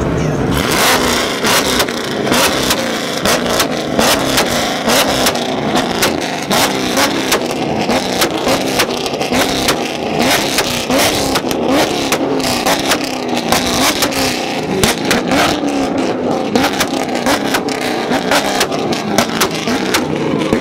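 Sports-car engines revved hard over and over, the pitch climbing and dropping about once a second, with many sharp exhaust cracks and pops on top.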